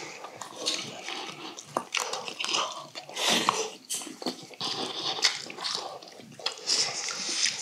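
Close-miked wet chewing and mouth smacking of people eating braised fish with rice, with scattered light clicks of chopsticks and spoons against stainless-steel bowls.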